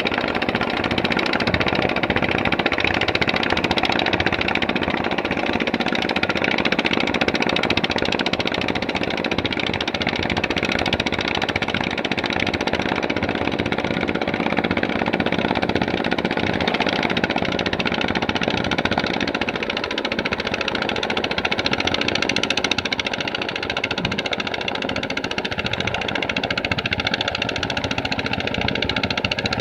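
A steady running engine, holding the same pitch throughout.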